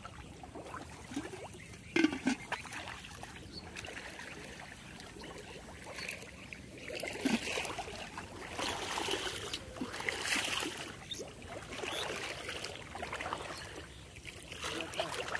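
Shallow muddy water sloshing and dribbling as someone wades and works by hand in it, with a short sharp knock about two seconds in.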